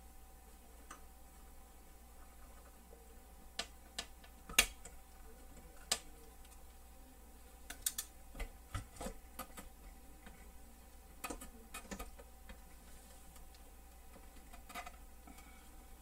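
Scattered light clicks and taps of a metal switch bracket and parts being worked into place against a reel-to-reel tape deck's metal panel, with one sharper knock a little before five seconds in.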